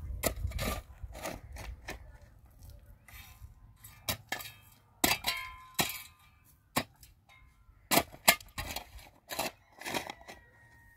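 A series of irregular sharp knocks and clinks of hard objects being struck, some leaving a brief metallic ring.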